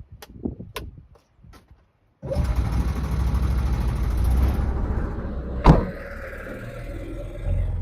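Small gasoline engine of the truck's range-extender generator starts up about two seconds in and keeps running. It is louder and hissier for the first couple of seconds, then settles lower, with a sharp click midway.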